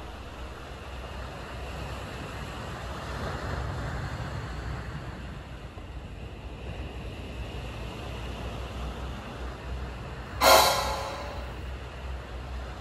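Surf breaking and washing over a boulder shore, a steady rush of waves and wind. About ten seconds in, a short, loud, pitched sound cuts in for about a second.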